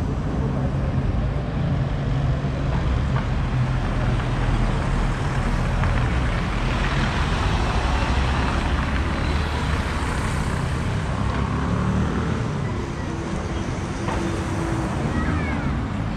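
City street traffic: car engines running, with one car driving close past about halfway through, its engine and tyre noise swelling and fading.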